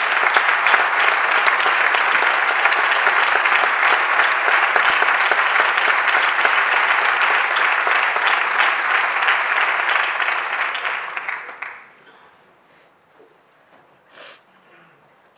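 Audience applauding, the dense clapping dying away about twelve seconds in to a quiet hall with only a few faint short sounds.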